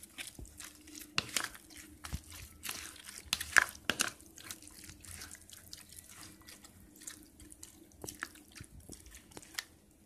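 A metal spoon stirring thick yogurt with chopped cucumber and onion in a plastic bowl: soft wet squelching and irregular clicks of the spoon against the bowl, loudest about three and a half to four seconds in.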